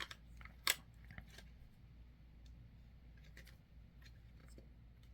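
Light clicks and taps of the calculator's plastic case parts being handled, the loudest about two-thirds of a second in, then a few fainter ones.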